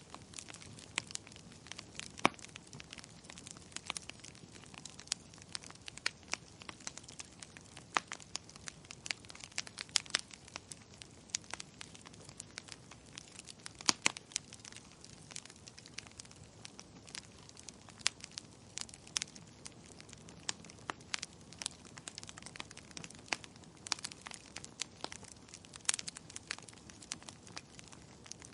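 Wood fire burning in a fireplace, crackling and popping irregularly, with sharper pops every second or two over a low steady hiss.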